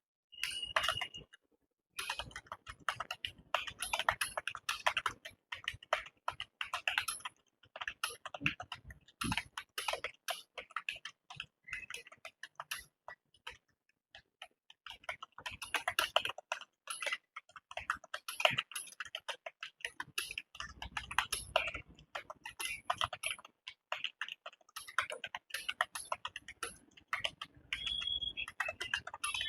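Steady touch-typing on a computer keyboard: rapid key clicks in continuous runs at about 46 words a minute, with short breaks about a second and a half in and again around fourteen seconds in.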